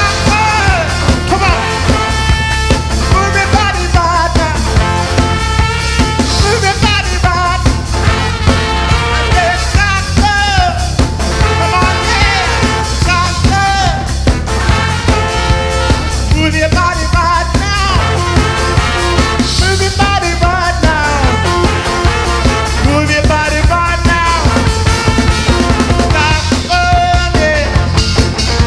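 Live band playing an up-tempo dance number: a steady drum beat and heavy bass under a lead melody line that bends and slides in pitch.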